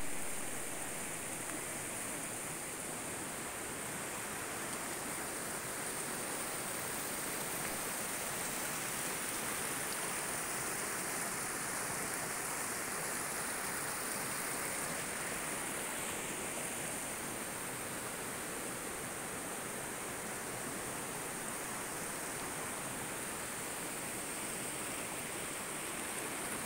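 A river in flood rushing steadily over rocks.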